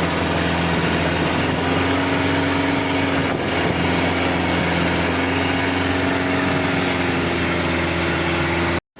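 Boat engine idling steadily with an even hum, cutting off abruptly just before the end.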